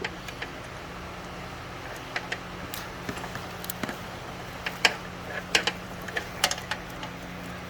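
Scattered, irregular light clicks and taps of hand tools and metal parts during engine-bay work, over a steady low hum.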